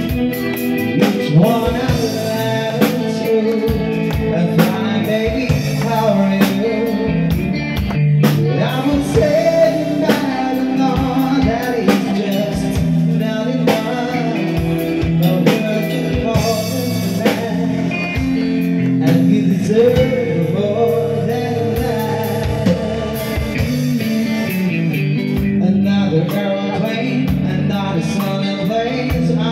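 Live band playing a song: a lead singer over electric guitar and drums, steady and loud.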